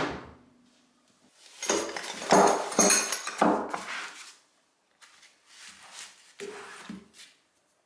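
A cast-iron vise body is set down on its swivel base with a metal clunk that rings briefly. Then steel combination spanners clink against one another in a fabric tool roll, loudest for about three seconds, followed by softer clinks as one spanner is drawn out of its pocket.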